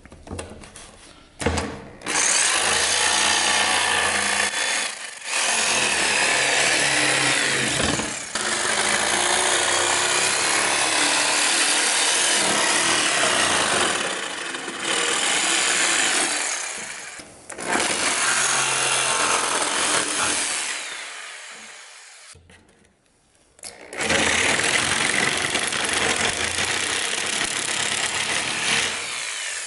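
DeWalt jigsaw cutting plywood along a curved outline. It runs in long stretches with a few short stops, falls almost silent for a couple of seconds late on, then starts cutting again.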